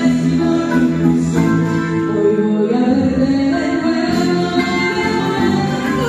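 Music with held, sustained chords and voices singing, choir-like.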